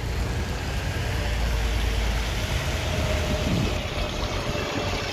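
Double-decker bus engine running, a steady low rumble that eases off about three seconds in, over a hiss of road noise on a wet street.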